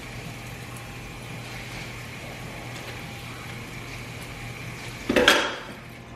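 Kitchen tap running a thin stream of water into a stainless-steel sink, a steady hiss, under a low electrical hum. About five seconds in comes one brief, louder sound as the bag is handled.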